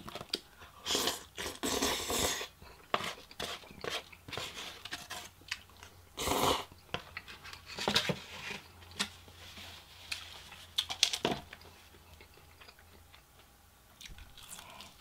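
Close-miked eating sounds: jajangmyeon (black bean noodles) being slurped and chewed, then crunchy bites of double-fried Korean fried chicken. They come as short wet and crunchy bursts between pauses, and grow quieter over the last few seconds.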